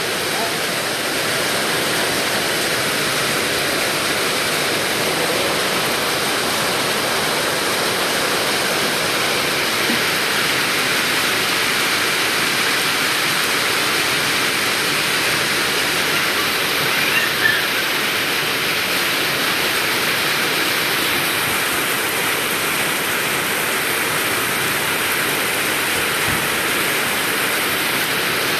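Steady heavy rain, an even, unbroken hiss of falling water. A brief faint voice is heard a little past halfway.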